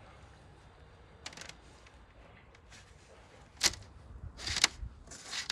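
Two sharp wet slaps about a second apart as a whole raw sturgeon is handled on an aluminium baking tray, followed by a short swish near the end.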